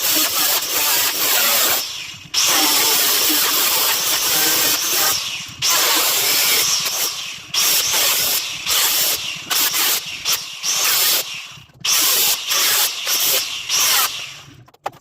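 A power tool cutting the sheet steel of an old car door, a loud hissing grind that runs in stretches of a few seconds with short pauses between cuts.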